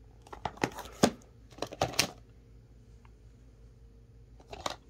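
Flat plastic stamp-set cases clicking and clattering as they are picked up and flipped through by hand. There is a quick run of clacks in the first two seconds and a couple more near the end.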